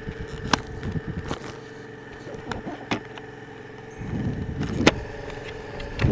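Motorcycle engine running at low road speed, getting louder about four seconds in, with several sharp clicks and knocks scattered through.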